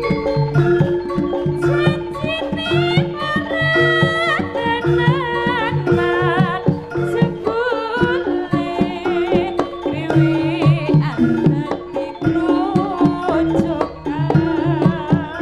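Live Javanese jaranan gamelan music: struck metallophone tones and kendang hand drums playing a dense, steady rhythm, with a high wavering melody line over them.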